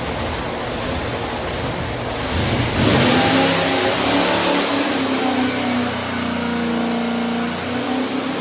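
Butler-built 462 cubic inch Pontiac V8 running, revved up about three seconds in and then held at a steady higher speed.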